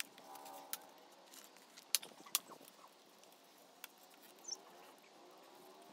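A few sharp clicks and taps from a plastic car kidney grille being picked up and handled, the loudest two about two seconds in.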